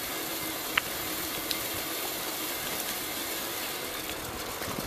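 Bicycle coasting downhill on asphalt: steady rush of wind over the microphone with tyre noise, and a few light clicks.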